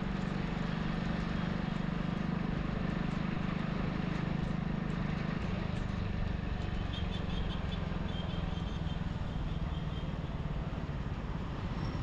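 Steady road noise from a vehicle moving along a rain-wet road: tyres hissing on the wet asphalt over a low, even engine hum.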